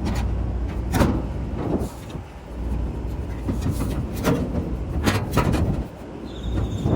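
Wind rumbling on the microphone, with several sharp clicks and knocks from hands-on work at the condenser unit.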